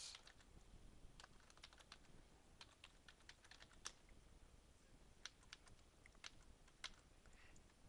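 Faint typing on a computer keyboard: single key clicks at irregular spacing as a word is entered and the cursor is tabbed between form fields.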